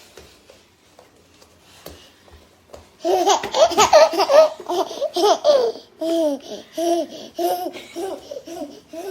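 A baby laughing, starting about three seconds in: a quick run of high laughs, then short repeated laughs spaced about every half second.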